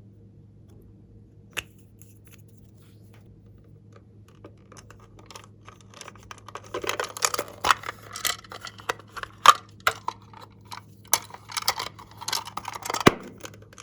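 Glossy slime being worked by hand, giving sticky crackles and pops that start about six seconds in and come thick and fast, over a low steady hum; a single click about a second and a half in.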